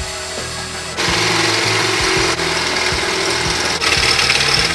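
DeWalt 20V cordless drill boring a hole through the steel frame of a riding lawn mower, its motor running under load. The drilling gets louder about a second in as the bit bites into the steel.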